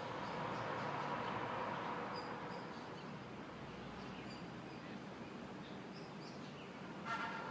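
A steady droning hum from the sky, of unknown source, rising about a second in and then easing off, with a 'nguung nguung' character. Birds chirp over it, and a short call comes near the end.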